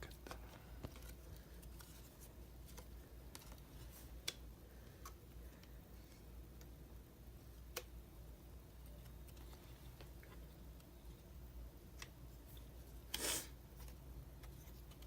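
Sparse small clicks and taps of laptop parts being handled and fitted during reassembly, with a brief scrape about thirteen seconds in, over faint room tone.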